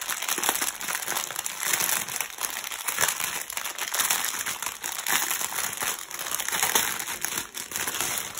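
Plastic packaging crinkling continuously as a long bundle of bagged diamond-painting drills is handled and unwrapped.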